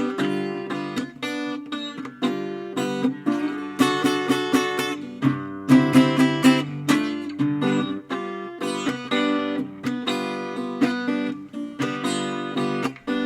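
Acoustic guitar playing a blues instrumental passage, with picked notes and strummed chords ringing out.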